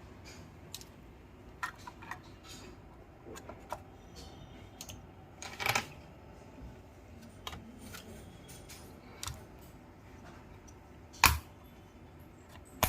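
Small clicks and knocks of computer parts being handled, scattered and irregular, with a louder clatter about halfway through and a sharp knock near the end.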